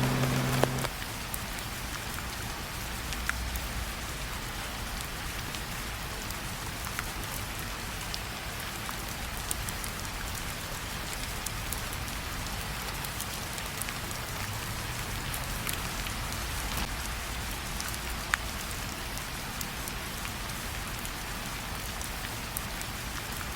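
Steady rain: an even hiss with scattered drop ticks. A lingering music note stops about a second in, leaving the rain alone.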